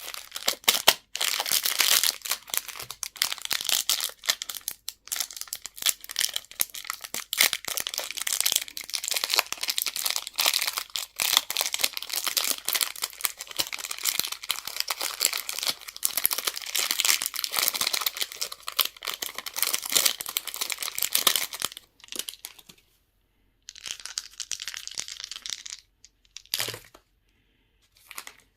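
Packaging wrapper crinkling and tearing as it is handled and opened: dense, continuous crackling for about twenty seconds, then stopping, with one shorter burst and a brief rustle afterwards.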